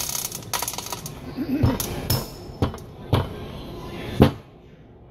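About five hammer blows on metal parts of a hydraulic breaker, spaced about half a second apart, with the last and loudest about four seconds in.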